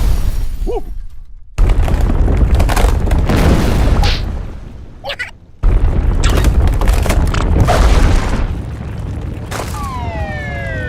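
Cartoon sound effects: heavy rumbling booms that cut off and start again abruptly twice, with short squeaky sounds in the pauses. Near the end comes a falling whistle-like tone.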